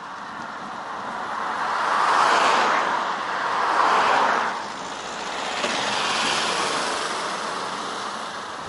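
Two motor vehicles overtaking a bicycle at close range, a van and then a car. Each brings a rising and fading rush of tyre and engine noise, with the van louder and the car a few seconds after it.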